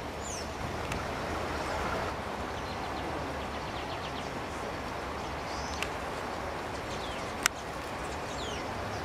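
A few short, high, falling bird call notes, one near the start and a couple more in the second half, over a steady background hiss. A single sharp click about seven and a half seconds in is the loudest sound.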